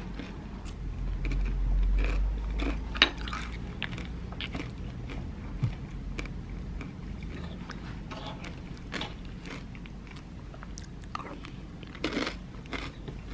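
A wooden spoon stirring yogurt with granola and fruit in a ceramic bowl: scattered scrapes and taps against the bowl, with crunching. A low rumble swells about one to three seconds in.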